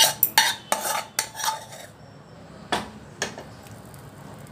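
A spoon scraping and clinking against a bowl and a cooking pot as thick gravy is scraped out: a quick run of clinks and scrapes in the first two seconds, then two sharp knocks about half a second apart.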